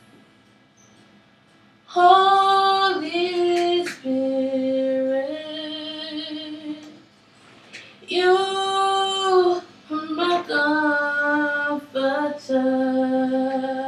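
A young girl singing solo with no audible accompaniment, drawing out long held vowels that step between notes, with no clear words. She comes in about two seconds in, and there is a short breath pause about halfway through.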